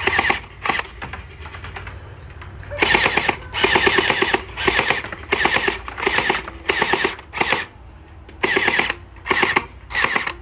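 Splat ball gun (gel-ball blaster) firing in repeated short rapid-fire bursts, about ten of them, each under a second long.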